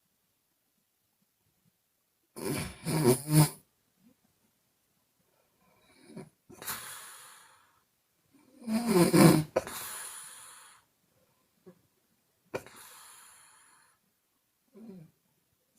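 A woman snoring in her sleep: two loud snores about six seconds apart, with softer airy breaths blown out through the mouth between and after them.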